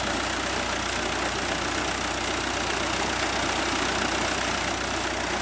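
Fiat 640 tractor's diesel engine running steadily while it drives a shaft-coupled irrigation water pump, over the rush of a thick jet of water pouring from the 7-inch delivery pipe into a concrete tank.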